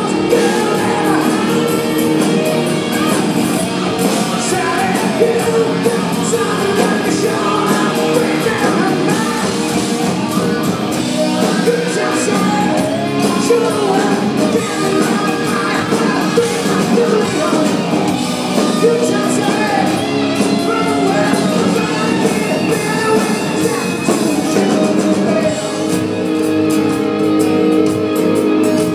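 Rock band playing live: a male lead singer sings over strummed acoustic guitar and electric guitars.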